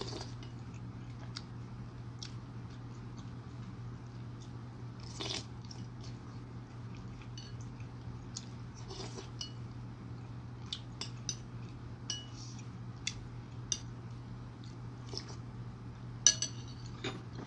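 A metal spoon clinks and scrapes against a ceramic bowl of chicken soup while someone eats, with scattered small clicks and a few soft eating noises. The sharpest clinks come near the end. A steady low hum runs underneath.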